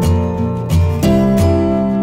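Background music: a strummed acoustic guitar playing in a steady rhythm.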